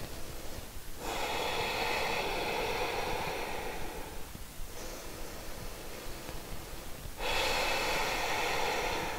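A person taking slow, deep, audible breaths: two long breaths, the first beginning about a second in and lasting some three seconds, the second starting about two seconds before the end.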